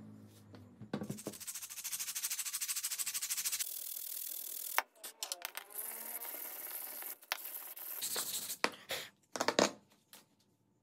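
Metal blade scraping a wooden stick in fast, even strokes, then a run of steady scraping, with a few sharp clicks near the end.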